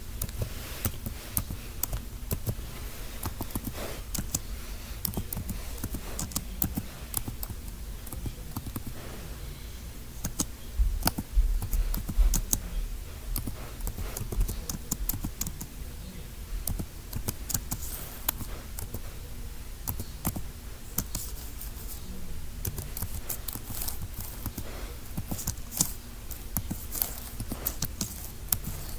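Scattered sharp clicks and taps throughout, with a run of dull low thuds about eleven to twelve seconds in.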